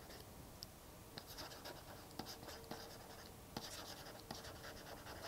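Faint scratching and small taps of a stylus writing on a tablet screen.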